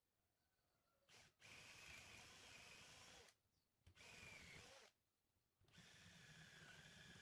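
Cordless drill boring into a wooden chair armrest in three runs of about two seconds, one second and two and a half seconds. Each run is a steady whine that sags in pitch as the drill slows at the end.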